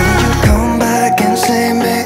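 Background pop/R&B song with drum hits.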